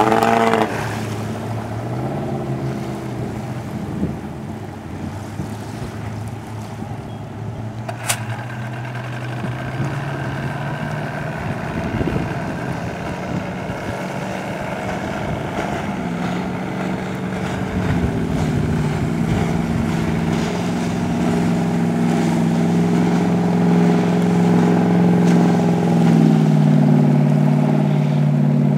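Ramsay Rebel ski boat's engine running at speed, its pitch dropping quickly as it passes at the start. In the second half the engine note rises and grows louder, then drops near the end.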